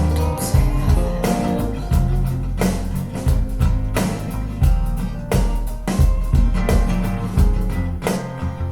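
A recorded song with guitar, deep bass and drums, played back through a pair of Focal Aria 906 bookshelf speakers. Heavy beats land at an even pace.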